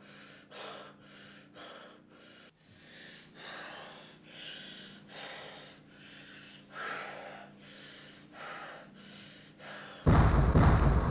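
A person breathing heavily and quickly, about two breaths a second, over a faint low hum. About a second before the end, a sudden loud burst of sound cuts in.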